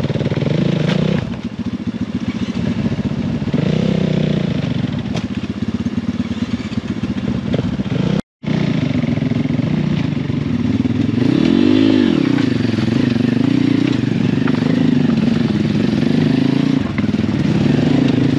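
Pit bike engine running in low gear over rocks, the revs rising and falling with short throttle blips, with one clear rev up and back down about twelve seconds in. The sound drops out completely for a moment about eight seconds in.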